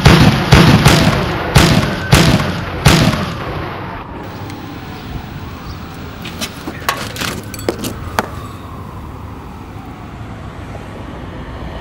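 Pistol shots fired in quick succession, about six in the first three seconds, each with a ringing tail. Later, around seven to eight seconds in, come a few sharp light clicks: the trigger of the empty pistol dry-firing after it has run out of ammunition.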